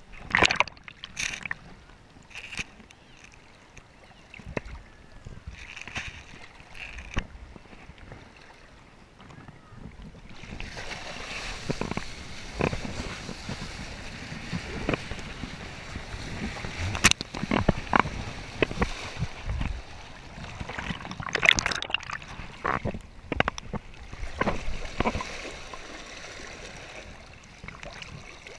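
Water rushing and splashing against a kiteboard riding over choppy sea, with sharp slaps as it hits the chop. The first stretch holds only scattered slaps; the steady rush starts about ten seconds in, when the board gets up to speed.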